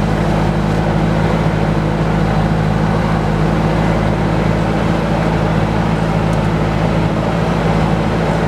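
Articulated loader's engine running at a steady speed as the machine drives along, heard from the operator's seat.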